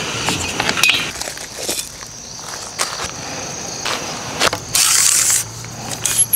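Scattered clicks and knocks of things being handled, with a brief loud hiss about five seconds in, over a steady high insect drone.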